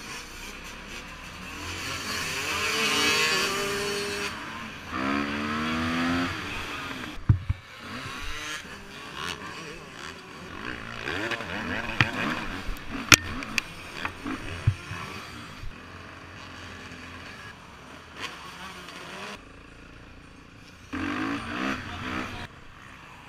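Dirt bike engine revving hard under acceleration, its pitch climbing in several runs and dropping back between them. A few sharp knocks come through in the middle stretch.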